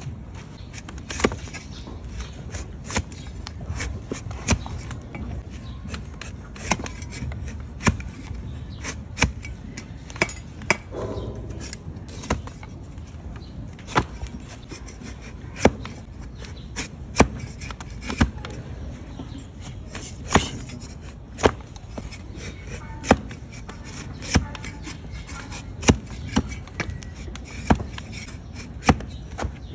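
Farrier's large flat paring blade shaving slices of horn off a donkey's hoof sole, each stroke ending in a sharp crack, roughly one every second or so, over a steady low background rumble.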